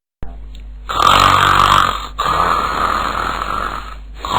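A man snoring loudly: a strong snore about a second in, followed by a softer, drawn-out breath, with the next snore beginning near the end.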